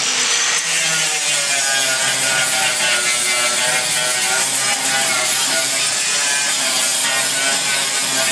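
Handheld angle grinder running steadily against sheet steel, throwing sparks; its whine wavers up and down in pitch as the load on the disc changes.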